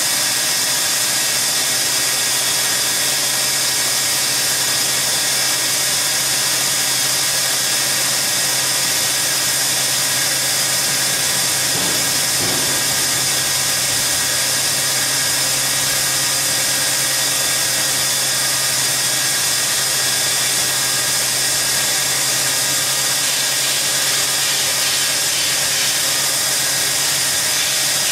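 Band saw cutting through a stack of metal sheets: a steady, loud hiss of the blade in the metal over a constant machine hum, unchanging throughout.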